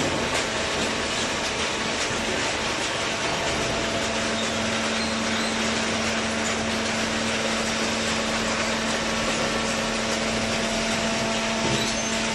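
Horizontal cardboard baler machine running: a steady mechanical noise, joined about four seconds in by a low steady hum that holds.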